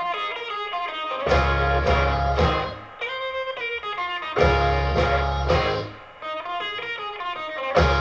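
Guitar-led song played from CD through a pair of Ocellia loudspeakers, with heavy bass notes coming in about a second in and again around the middle and near the end.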